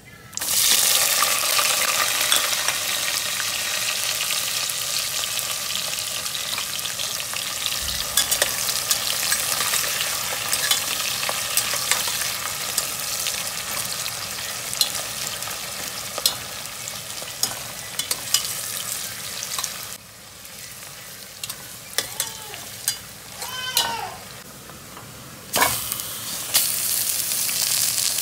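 Sliced onions hit hot oil with whole spices in a stainless steel pot and start sizzling loudly at once, then fry steadily with stirring clicks. About twenty seconds in the sizzle drops and a few knocks are heard. Near the end a fresh burst of sizzling comes as raw mutton pieces go into the pot.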